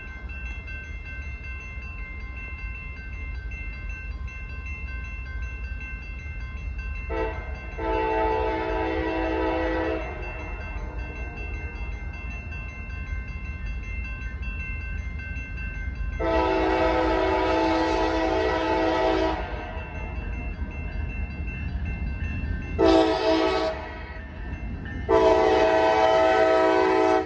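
Diesel locomotive's multi-chime air horn sounding the grade-crossing signal: two long blasts, a short one, then a long one, over the steady low rumble of the approaching train.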